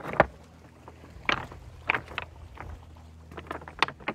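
Loose beach stones clacking together: irregular sharp knocks, several a second apart, over a low steady hum.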